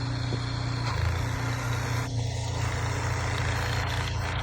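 A vehicle engine running steadily with a low hum, under a wash of outdoor noise.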